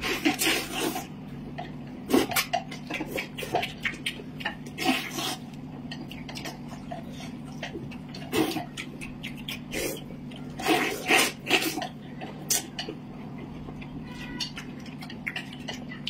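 Noodles being slurped and eaten with chopsticks: loud slurps every few seconds, with small clicks of chopsticks against plates in between, over a steady low hum.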